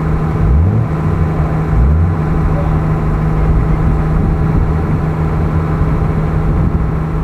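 Off-road 4x4's engine running steadily at low revs, rising briefly twice in the first couple of seconds.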